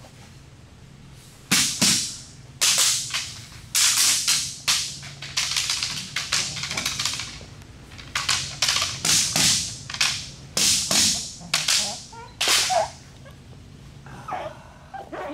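A decoy's training stick cracking again and again while a Malinois puppy holds the bite suit. There are about a dozen and a half sharp slaps, some in quick pairs, starting about a second and a half in and stopping a couple of seconds before the end.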